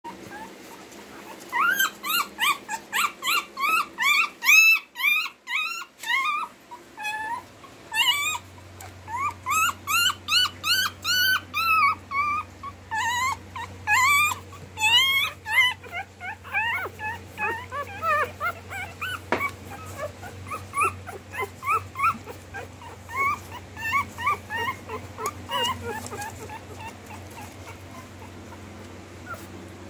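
Newborn Lhasa apso–Rottweiler cross puppies whimpering and squeaking, a rapid run of short, high, arching cries several a second that thin out and fade near the end.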